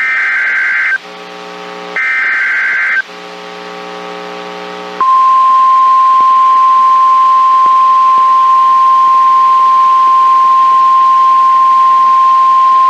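NOAA Weather Radio emergency alert tones. First come the last two bursts of the SAME digital header, a screechy warbling about a second long each, with a low buzz in the gaps. About five seconds in, the steady 1050 Hz warning alarm tone starts and holds, signalling that a warning is about to be read.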